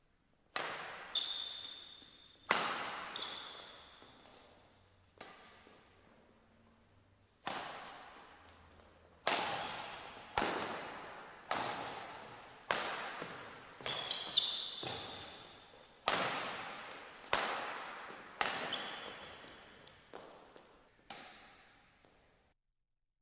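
Badminton rally: sharp racket strikes on the shuttlecock, each echoing through a large hall, irregular at first and then about one a second. Short high shoe squeaks on the court mat come between the strikes, and the hits stop near the end.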